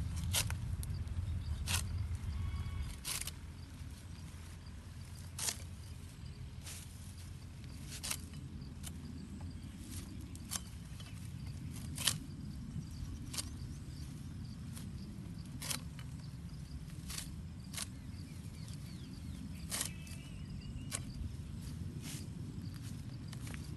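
Green fodder stalks being cut by hand, a sharp snap every second or two, over a steady low rumble.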